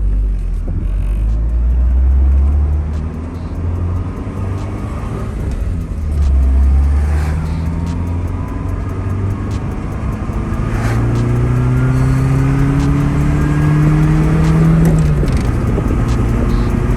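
Nissan 240SX S13's engine pulling under acceleration, its pitch rising steadily, then dropping at a gear change near the end.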